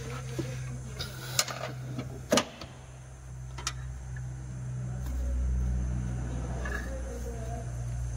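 Sharp metallic clicks of a ring spanner and screwdriver working a rocker-arm tappet adjusting screw and its locknut, about three distinct ones in the first four seconds, over a steady low hum that gets louder about halfway through.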